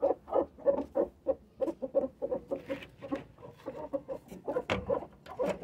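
Domestic hens clucking: a steady run of short clucks, about three a second, with a couple of sharp knocks near the end.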